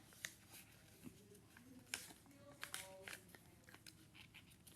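Faint crinkles and sharp little ticks of a sheet of printer paper being folded and creased by hand, the clearest tick about two seconds in.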